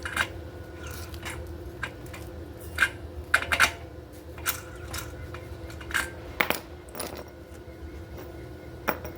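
Irregular sharp metallic clinks and taps on small steel parts, each ringing briefly, over a low steady hum.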